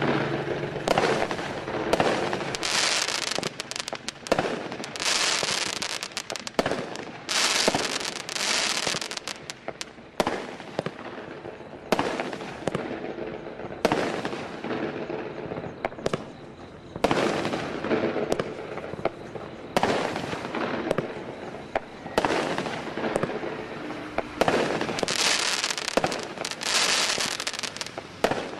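Aerial fireworks firing in quick succession: sharp pops and bursts, many followed by about a second of crackling hiss, with a quieter stretch around the middle.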